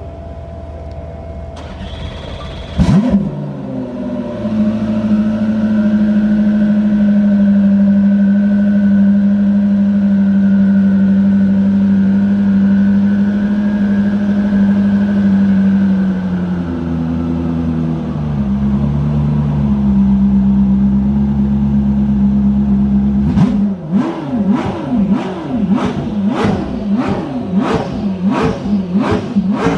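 Koenigsegg CC850's twin-turbo V8 cold-started: it fires about three seconds in and idles high, then settles to a lower, uneven idle about halfway through. Near the end it gets a rapid series of about ten sharp throttle blips.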